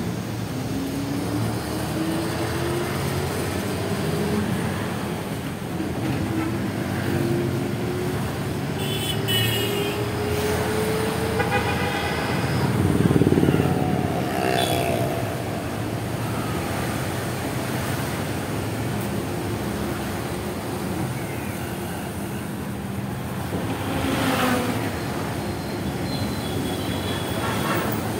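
City road traffic heard from a moving vehicle: steady engine and road rumble, with an engine note rising slowly as it speeds up over the first dozen seconds. Several vehicle horn toots sound around the middle.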